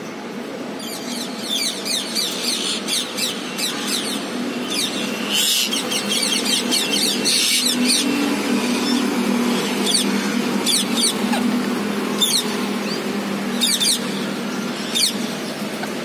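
Rose-ringed parakeets calling: quick runs of short, sharp, high-pitched calls that thin out to single calls after about eight seconds.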